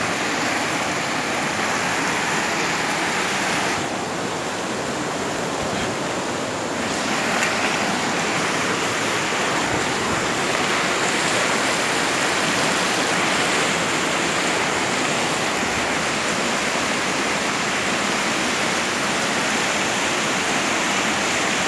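Whitewater rapids of a fast mountain river rushing steadily over rocks. The rush turns duller for a few seconds about four seconds in, then comes back full.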